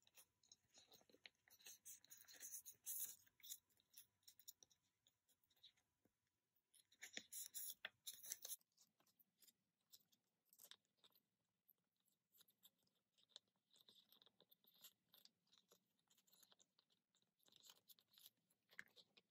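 Faint crinkling and rustling of plastic card sleeves and binder pocket pages as photocards are slid into them, with scattered small clicks. The crinkling is loudest in two spells, one near the start and one about seven to eight seconds in.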